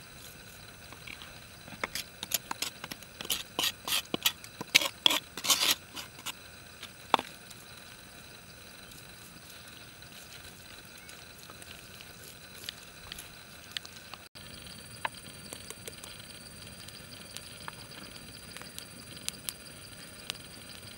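Large knife cutting into a fish on a wooden chopping block: a quick run of sharp clicks and taps for several seconds, then a faint steady hiss with a few scattered clicks.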